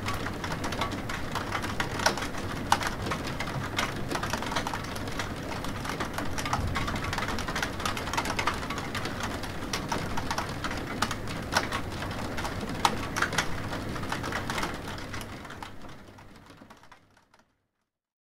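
Steady rain during a thunderstorm, with many sharp, irregular ticks of drops striking a hard surface; it fades out to silence near the end.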